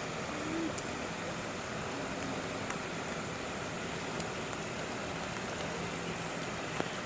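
Steady outdoor background noise, with a few faint clicks.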